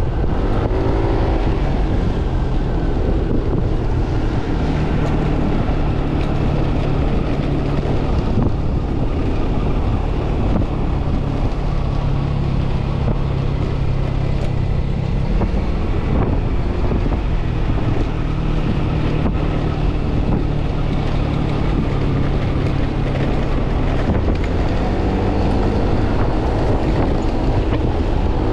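Yamaha NMAX scooter's single-cylinder engine and CVT running on the move, with wind rushing over the microphone. The engine note is steady, rising in pitch about a second in and again near the end as the scooter speeds up.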